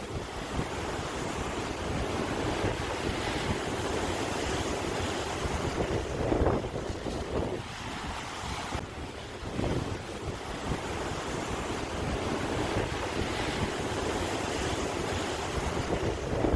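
Sea waves washing in, a steady rushing that swells about six and a half seconds in, again near nine and a half seconds, and at the end, with wind buffeting the microphone.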